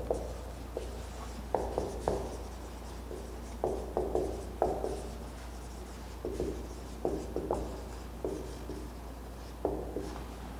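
Marker pen writing on a whiteboard: a string of short, irregular strokes and taps as a line of words is written by hand.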